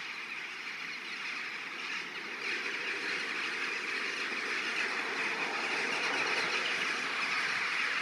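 A huge flock of rooks and jackdaws gathering to roost, their many calls blending into a dense, steady din that grows louder about two and a half seconds in.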